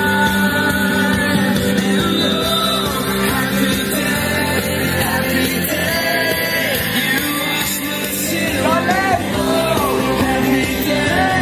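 Loud music with singing voices, held notes over a steady accompaniment, and shouting voices rising over it in the last few seconds.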